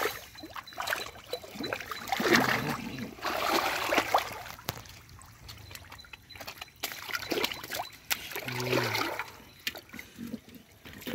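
Shallow muddy water splashing and sloshing in irregular bursts as hands dig through the mud and lift out catfish, with a couple of short low voice-like sounds.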